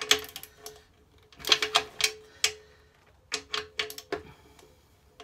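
Torque wrench's ratchet clicking in three short bursts of quick clicks as the sump guard bolts are tightened toward their 18 N·m torque, with a faint metallic ring behind the clicks.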